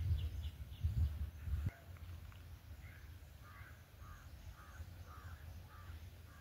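Wind buffeting the microphone as a low, gusty rumble that stops abruptly a couple of seconds in. After that a bird calls about seven times in a quick, harsh series over quiet outdoor background.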